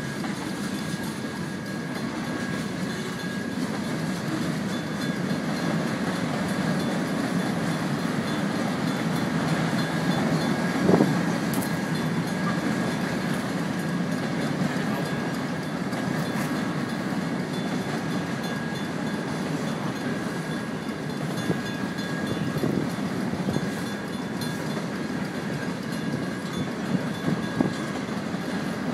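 Freight train cars rolling past with a steady wheel rumble and clickety-clack, and a grade-crossing bell ringing throughout. A single loud knock comes about eleven seconds in.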